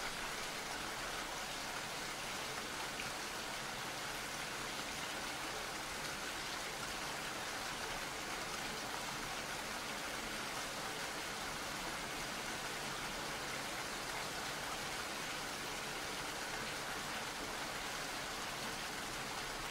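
Steady rain, an even hiss with a faint patter of drops.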